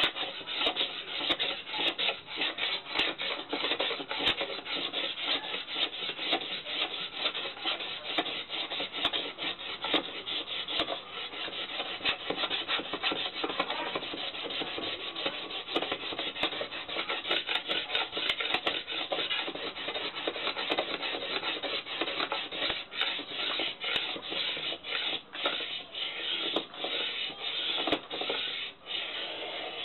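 A blade scraping along a bamboo pole in quick repeated strokes, shaving off fine bamboo scrapings to use as tinder for a friction fire. The strokes ease off near the end.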